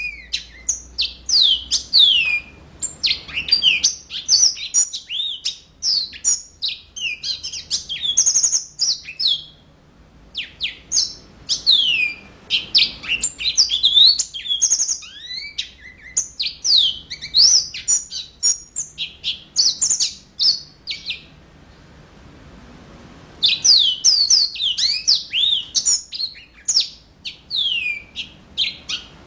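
Yellow-fronted canary (mozambik) singing in full, vigorous song: long, fast runs of high sweeping chirps and trills. The song breaks off for about two seconds roughly three quarters of the way through, then starts again.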